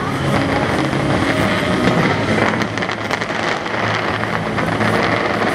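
Fireworks display going off continuously: many small crackles and pops running together over a steady rumble.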